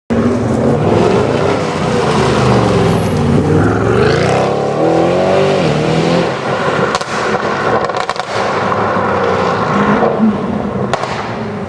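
Tuned Audi RS6 C7's twin-turbo V8 through a decatted Milltek exhaust, revving up and down repeatedly, with sharp exhaust pops and crackles in the second half.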